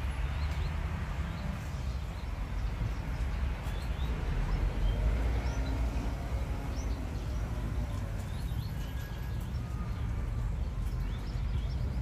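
Outdoor park ambience: a steady low rumble with faint, scattered bird chirps above it.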